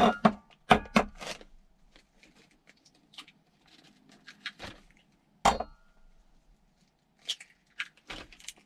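Eggs being cracked and emptied into a plastic freezer bag: three quick sharp taps about a second in, a single louder knock midway, and scattered soft clicks and faint crinkling of the bag.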